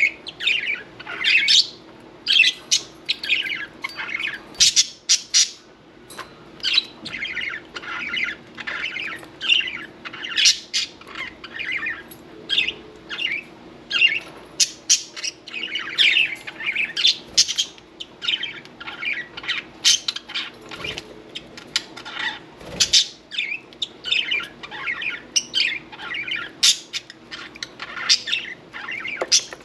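Budgerigars chirping and squawking in rapid, near-continuous chatter, with short sharp calls mixed into a busy warble.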